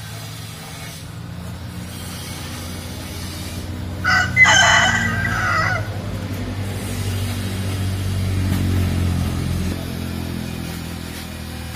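A rooster crows once, a single cock-a-doodle-doo about four seconds in lasting under two seconds, over a low steady motor rumble that grows louder and then drops off about two seconds before the end.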